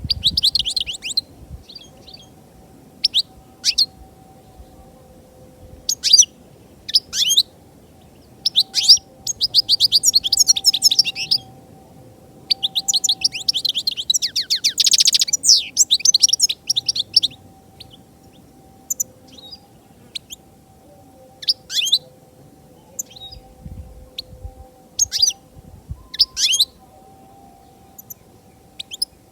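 European goldfinch singing: quick bursts of rapid, high twittering and trills. The longest phrases come in the first half, followed by shorter, scattered notes.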